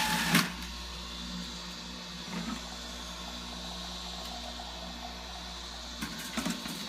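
Electric juicer motor running steadily, with a couple of light knocks near the start and about two seconds in.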